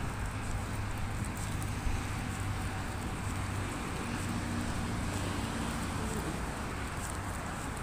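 Steady hum of road traffic on a multi-lane road alongside, with wind on the microphone.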